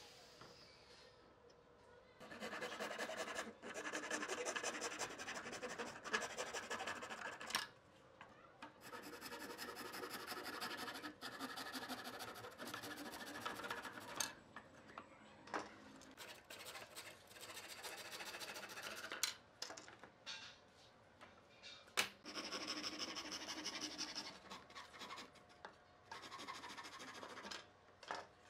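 Fine-toothed handsaw cutting through thin wooden strips, sawing in several stretches of a few seconds each with short pauses between, and a single sharp click about two-thirds of the way through.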